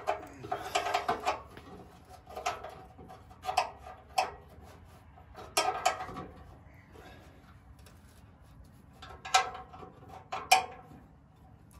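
Irregular metal clinks and clanks of a wrench and bolts against the steel of a tractor's rear frame and fender while a Brinly spring assist is bolted on, in short bursts with pauses between, the sharpest two near the end.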